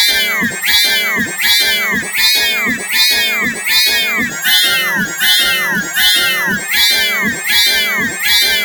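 A meow-like cry looped in a steady rhythm, about three repeats every two seconds, each holding high and then falling in pitch, electronically processed in a Sparta-remix style.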